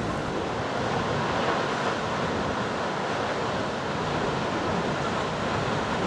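Kegon Falls, a tall waterfall, plunging with a steady, even rush of falling water.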